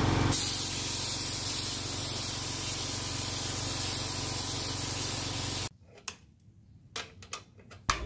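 Gravity-feed paint spray gun spraying a coat onto a black motorcycle side cover: a steady hiss of atomising air that cuts off suddenly about five and a half seconds in.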